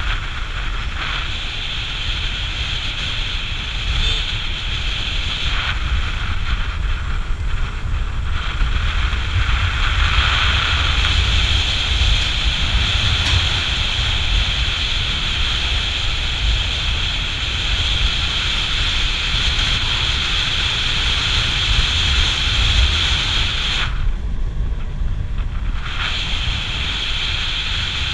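Wind buffeting the microphone of a camera on a moving motorcycle, a steady rumbling rush with the bike's engine and tyre noise underneath. The upper hiss dips out briefly a few seconds before the end.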